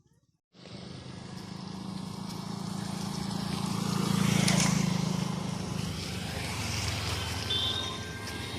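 A motor vehicle's engine passing by: a low hum that starts suddenly after a moment of silence, grows to its loudest about four and a half seconds in, then fades, with a steady hiss behind it.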